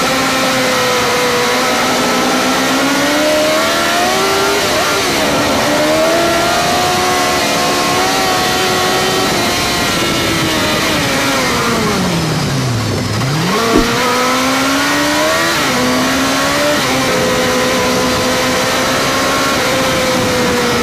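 Suzuki GSX-R inline-four motorcycle engine heard onboard at speed, its pitch rising and falling continuously with the throttle through the bends. About two-thirds of the way in the revs slide a long way down, then climb back quickly with a short click.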